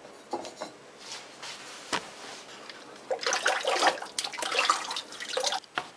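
A bowl dipped into a basin of liquid majolica glaze-base and lifted out full, the glaze sloshing and splashing for a couple of seconds past the halfway point. Before that come a few light knocks as bisque tiles are set down on wooden bars.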